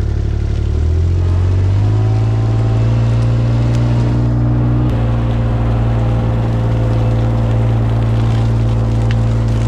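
A motor vehicle's engine running close by. Its speed steps up over the first couple of seconds, then holds steady at the higher pitch.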